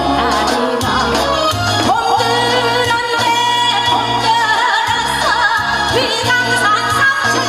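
A woman singing a Korean folk song into a microphone over amplified accompaniment with a steady bass, holding one long note with vibrato from about two seconds in.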